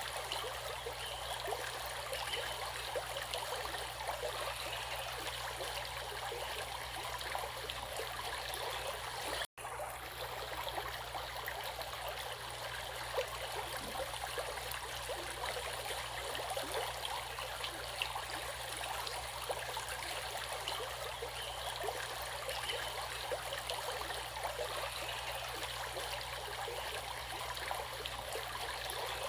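Stream water flowing steadily over rocks, a constant splashing and trickling rush. About ten seconds in the sound cuts out for an instant and resumes unchanged.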